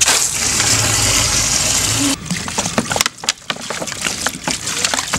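Water running hard from an outdoor tap into a plastic bottle, a steady rush that cuts off about two seconds in. Then the bottle is poured out onto clothes in a plastic basin, with uneven splashing.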